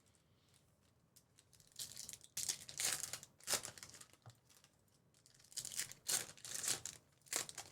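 Trading card pack wrappers being torn open and crinkled in a series of short crackling rips, starting about two seconds in.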